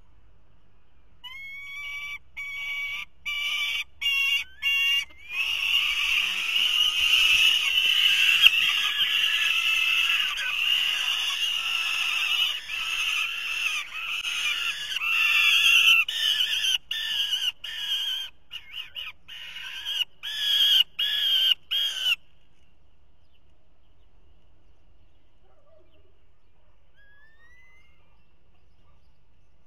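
Young falcons screaming over and over in harsh, wailing calls: nestlings begging and competing over food at the nest. The calls start about a second in, go on for some twenty seconds, then cut off suddenly, leaving only a faint hiss.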